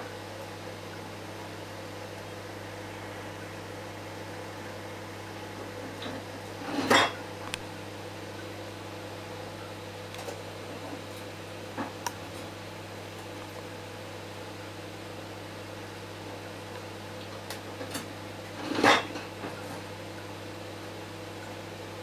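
Microwave oven running with a steady hum while heating 400-grit silicon carbide. Two loud sharp pops come about twelve seconds apart, with a few faint clicks between them.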